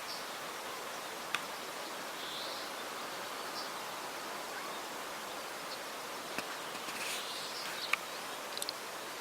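Steady rushing noise of the flooded Glomma river's flowing water, with a few faint high chirps and sharp clicks scattered through it.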